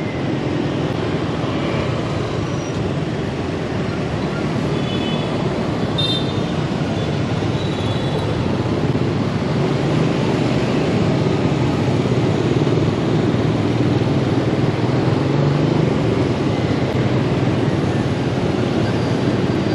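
Steady street traffic noise from motorbike engines and tyres on the road, with a few faint short high beeps partway through.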